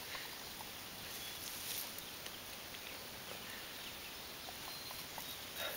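A dog nibbling raspberries off low bushes: faint chewing and mouth clicks with leaves rustling softly.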